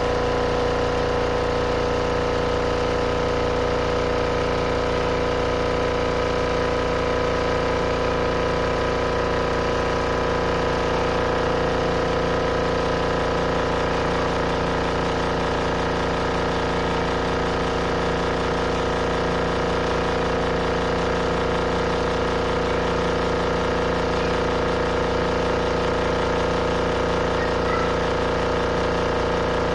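Compact RV washing machine spinning its load, the motor humming at one steady pitch.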